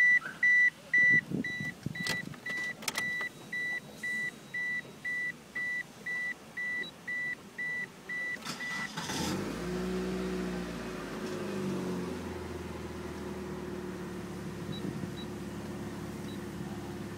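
A car's warning chime beeps about twice a second with the ignition on. About nine seconds in, the engine cranks briefly, starts, and settles into a steady idle.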